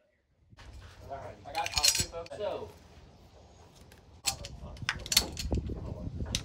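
Brass .30-06 rifle cartridges clinking and clicking as they are handled and pulled from a plastic loading block, with sharp clicks from about four seconds in.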